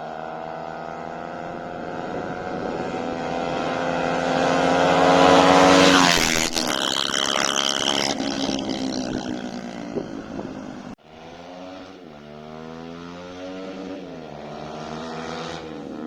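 Bajaj Pulsar RS200 single-cylinder engine through an aftermarket Akrapovic exhaust on a fly-by: the exhaust note builds as the bike approaches and is loudest about six seconds in, then the pitch drops as it passes. After a sudden break near eleven seconds, the exhaust is heard again, revving up and shifting gears.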